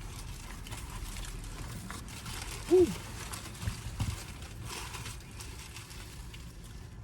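People eating with little talk over a steady low rumble; one of them lets out a short hummed "mm" about three seconds in, and a few faint knocks follow.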